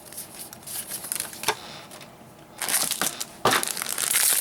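Foil trading-card booster pack wrappers crinkling and crumpling as packs are handled and opened, in several short bursts, the longest and loudest near the end.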